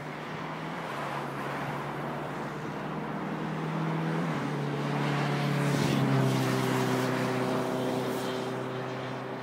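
Engine drone over a steady roar, rising to its loudest about six seconds in and then fading, its pitch stepping down twice along the way.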